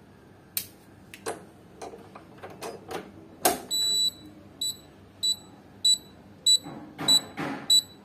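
A few sharp clicks as the toggle switch is worked, then, from about halfway, the piezo buzzer of a homemade 9-volt door alarm sounding: a short steady high tone, then high beeps repeating just under twice a second.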